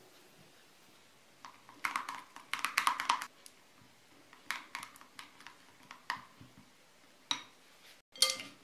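A knife and a spatula knocking and scraping against a glass bowl as a mayonnaise dressing is stirred: a quick run of clicks about two seconds in, then single knocks every second or so.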